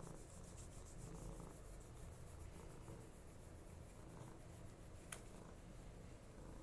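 Faint rubbing and rustling, with one sharp click about five seconds in.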